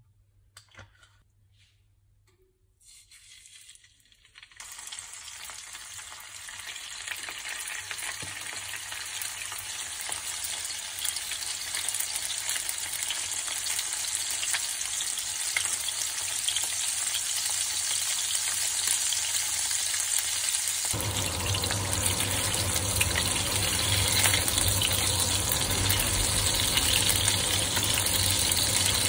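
Salmon fillets frying in olive oil in a nonstick pan, a steady sizzle that starts a few seconds in and grows louder as it goes, with a deeper rumble joining it in the last third.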